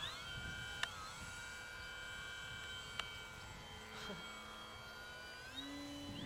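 Electric motor and propeller of a Park Master 3D model aerobatic plane whining faintly in flight, the pitch dipping and coming back up as the throttle is cut and opened, then holding steady. A few sharp clicks, with a low wind rumble underneath.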